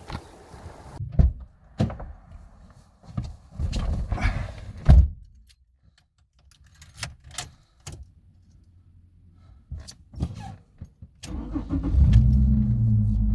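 A run of knocks and clicks, then about eleven seconds in the Holden VY Commodore's engine starts and keeps running steadily.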